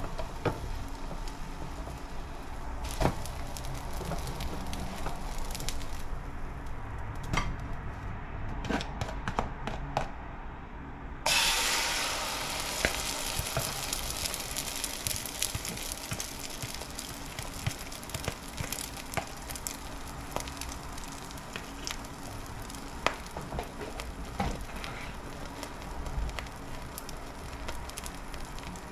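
Frying sizzle in a hot cast-iron skillet with scattered sharp clicks. About eleven seconds in, the sizzle turns suddenly loud and hissing as a fresh batch of beaten egg hits the hot pan, then settles into a steady frying sizzle.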